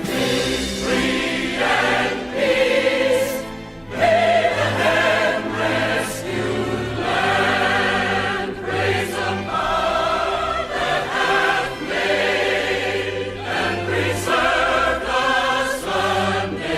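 A choir singing slow, sustained notes over a low accompaniment, like a choral hymn or anthem.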